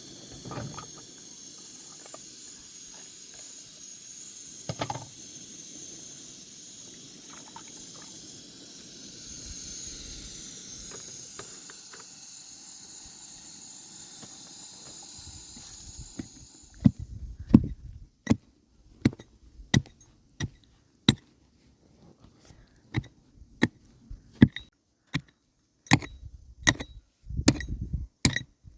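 A steady hiss for the first half, then it stops about halfway through and sharp hammer strikes on wood begin, roughly one or two a second, as planks are nailed for a roof.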